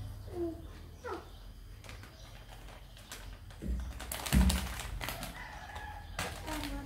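A clear plastic bag crinkling and rustling as kittens paw at it and one moves about inside it. There are a couple of short high mews near the start, and two loud dull thumps, one partway through and one at the end.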